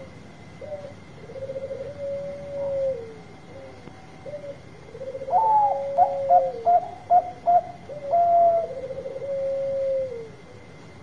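Zebra dove (perkutut Bangkok) song: long coos that fall at the end. About halfway through comes a higher dropping note and a run of five or six short, quick notes, and then another long falling coo.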